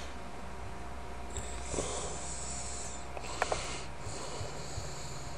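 A person breathing close to a webcam microphone over steady background hiss, with two small clicks about three and a half seconds in.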